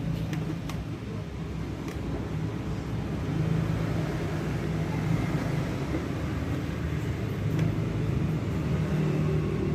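Motorcycle engine running steadily at idle, with a few light clicks.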